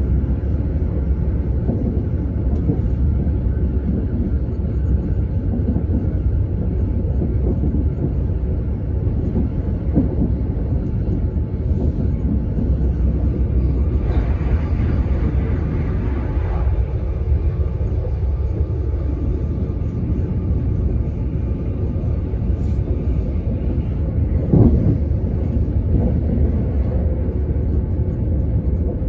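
Inside a moving commuter train (an X60 electric multiple unit): a steady rumble of wheels on the rails, with a few sharp knocks from the track and a brief rush of brighter, hissing noise about halfway through.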